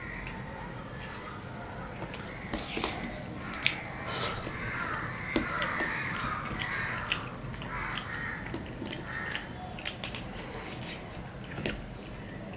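Eating by hand from a stainless steel plate: fingers mixing rice and curry, with scattered soft squishes and sharp clicks of fingertips against the plate. In the middle a harsh, rasping background sound lasts about three seconds.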